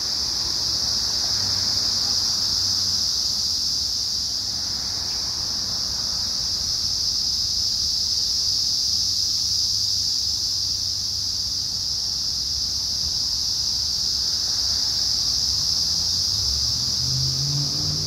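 Dense chorus of Brood X periodical cicadas: a loud, steady, high-pitched drone that does not let up. Road traffic rumbles underneath, swelling as vehicles pass, with an engine coming closer near the end.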